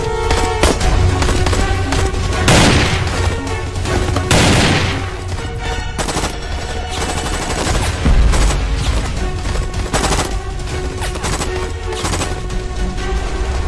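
Action-film soundtrack of rapid gunfire, automatic bursts and single shots, over a driving music score. Two falling whooshes sweep past a few seconds in.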